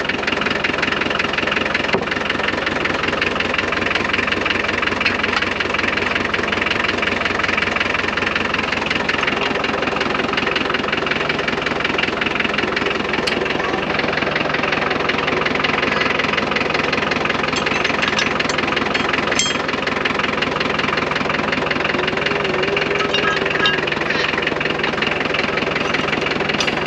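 McCormick D-430 tractor's diesel engine idling steadily, with an even knocking beat.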